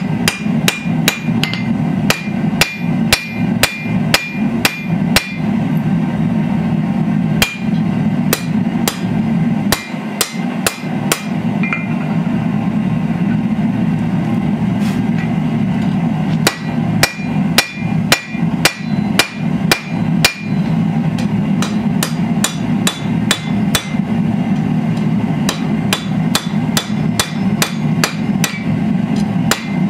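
Hand hammer striking red-hot steel on an anvil: quick runs of blows, about three a second, each with a bright ring from the anvil, thinning to a few scattered blows in the middle. A steady low hum runs underneath.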